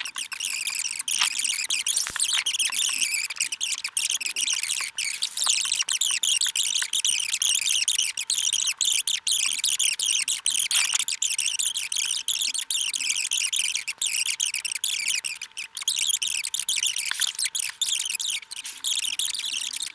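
A woman's speech played back greatly sped up, turned into rapid, very high-pitched squeaky chatter with no words that can be made out.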